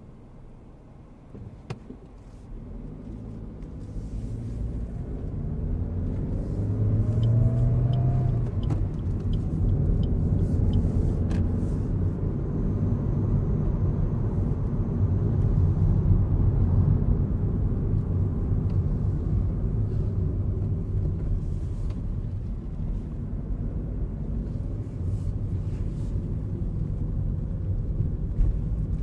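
In-cabin sound of a 2023 Suzuki Swift's 1.2-litre petrol mild-hybrid engine and tyres. It is quiet at first, then builds over several seconds as the car speeds up, with a short rising engine note, and settles into a steady low rumble of engine and road noise.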